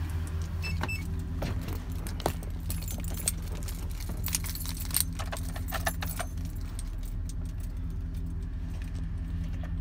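Chevrolet pickup's engine idling with a steady low hum, while keys jangle and click repeatedly during the first six seconds.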